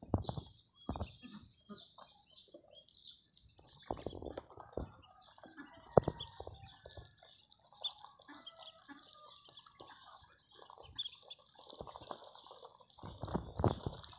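A crowd of ducklings peeping continuously in high, short chirps, over irregular clicks and wet pecking sounds of bills at feed and a water drinker.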